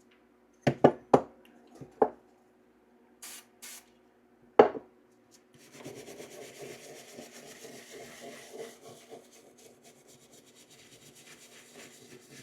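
Several sharp knocks as the pistol parts are handled, then steady rubbing and scrubbing on the rusty steel of a 1911 pistol to work off surface rust.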